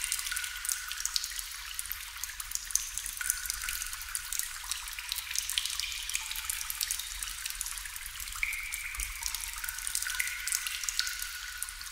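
Water dripping into water: many irregular drops and plinks, some with a short ringing pitch.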